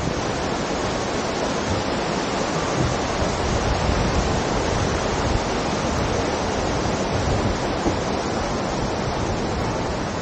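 Steady rushing of fast-flowing water, an even unbroken hiss with no gusts.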